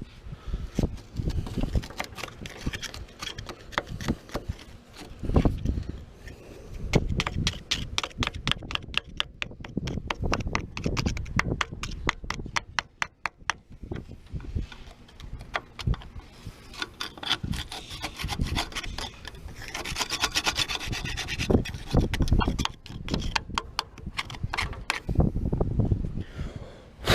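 Hand tools working on a car during disassembly: runs of rapid, even clicking with scraping and occasional knocks.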